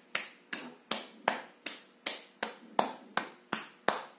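A cupped, hollow palm patting the upper chest in a steady rhythm: about eleven slaps, a little under three a second.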